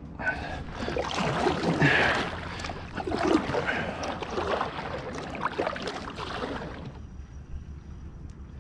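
Double-bladed kayak paddle strokes: the blades dipping into the water and splashing on alternate sides, with water dripping and an occasional knock of the paddle. The paddling stops about seven seconds in.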